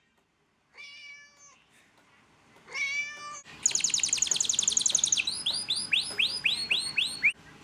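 A cat meowing twice, then a small bird's rapid high twittering trill from about three and a half seconds in, breaking into a string of quick separate chirps before it stops near the end.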